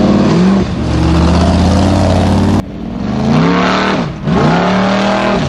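Formula Offroad racing jeep's engine revving hard under load, its pitch rising and falling as the throttle is worked. About two and a half seconds in the sound cuts abruptly to another stretch of repeated rev rises and drops.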